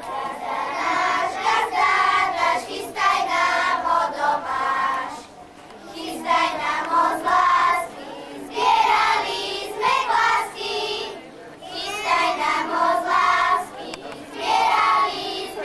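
Group of children singing a folk song together, in short sung phrases with brief breaks between them.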